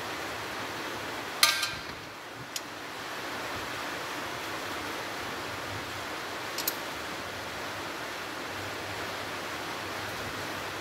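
A few sharp metallic clinks of a hand tool and small parts against the wheel hub, the loudest about a second and a half in with a short ring, over a steady hiss.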